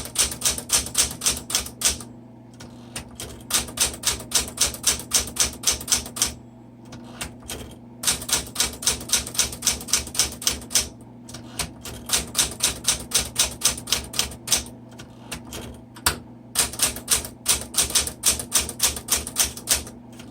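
Smith Corona Super Sterling manual typewriter being typed on: runs of quick keystrokes, about five or six a second, broken by several short pauses.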